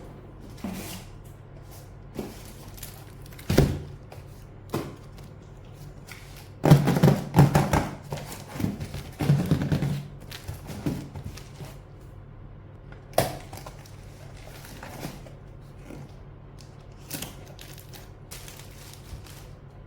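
Handling noises: scattered thuds and knocks, with a busier stretch of knocking and rustling in the middle, over a faint steady low hum.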